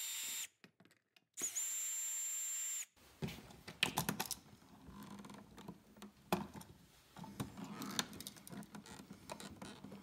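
Milwaukee cordless drill/driver motor whining in two short runs in the first three seconds as it backs out a wall switch's screws. After that come scattered clicks and rustles as the switch and its stiff wires are worked out of the metal box by hand.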